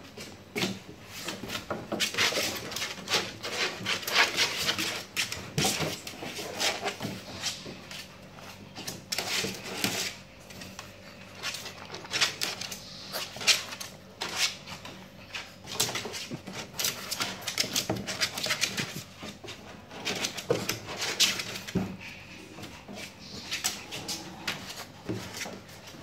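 Shih Tzu puppies play-fighting and pawing at a hand in a plastic playpen: a busy run of short scratches, scrabbling claws and knocks against the plastic, with small puppy sounds now and then.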